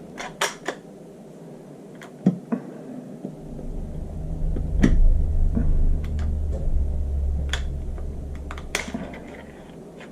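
Smith & Wesson Sigma SW9F pistol being handled during takedown, the slide being worked off the frame: scattered sharp metal-and-polymer clicks, with a low rumble of handling noise for several seconds in the middle.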